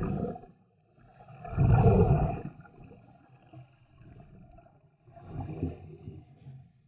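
Scuba diver breathing through a regulator underwater: exhaled air bubbles rush out in three bursts of about a second each, the loudest about two seconds in, with quiet inhalations between.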